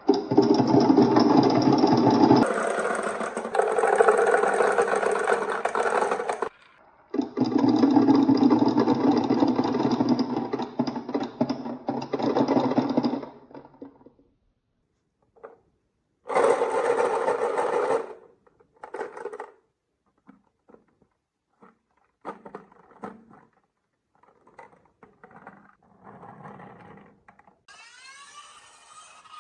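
Marbles rolling and clattering down a marble run: two long stretches of continuous rolling rumble, a shorter one, then scattered clicks and clacks as single marbles drop and knock along the track.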